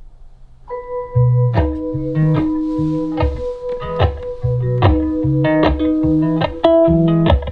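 Instrumental guitar intro of an acoustic pop song playing from a JBL Xtreme 3 Bluetooth speaker. It comes in about a second in with a held note, then plucked guitar and bass notes.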